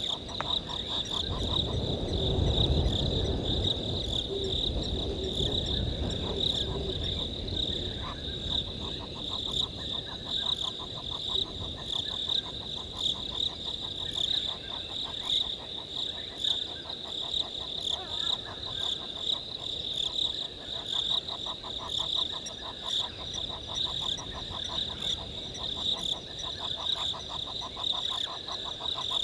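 Night chorus of frogs and insects: a steady high trill with rapid, evenly pulsed calls lower down. A low rumble sits under the chorus for the first several seconds.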